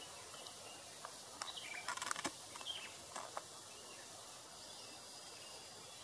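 Small birds calling: a quick cluster of short, sharp high chirps and clicks about two seconds in, over a faint steady background hiss.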